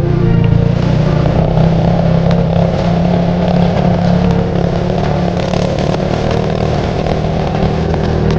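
Motorcycle taxi engine running steadily under load as it carries riders.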